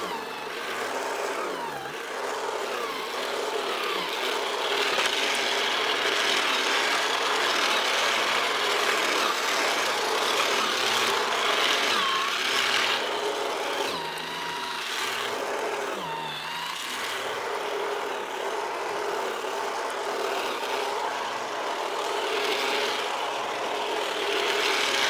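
Small handheld Toro snow thrower running steadily as it churns through and throws heavy, wet snow, easing off slightly a little past the middle.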